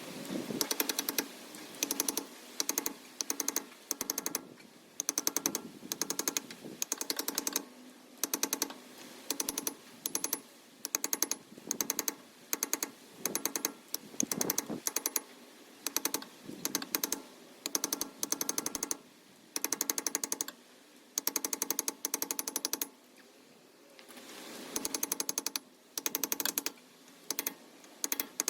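A powered impact tool hammering in short bursts of rapid strikes, repeated about once a second, with a longer pause a little after two-thirds of the way through.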